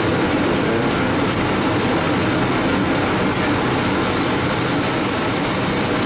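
Steady rushing noise of a commercial kitchen: extractor hood and lit gas burners running, with a couple of faint clicks.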